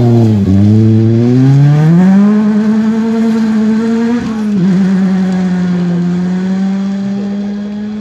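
Ford Fiesta rally car's engine under hard acceleration as it passes and drives away. The revs dip briefly just after the start, then climb steeply, with a gear change about four seconds in. The engine then pulls on at high revs, fading with distance.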